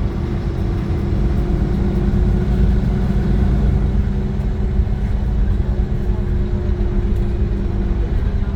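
Iveco Crossway LE 12 bus running, its Cursor 9 diesel engine and ZF gearbox giving a steady low rumble with a steady hum.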